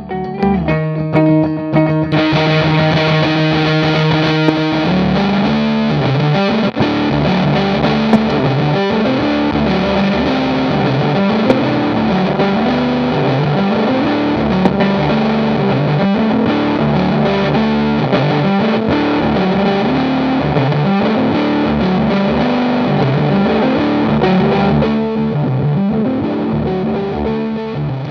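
Electric guitar, a 1980 Gibson SG Custom, played through a Stone Deaf PDF2 fuzz pedal into a Marshall 1987 reissue head. The tone is heavily fuzzed and turns thicker about two seconds in, then plays a repeating riff.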